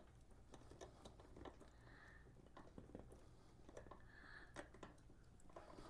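Near silence: faint scattered clicks and ticks of a small hand tool turning a bolt with a collared washer, over a low steady hum.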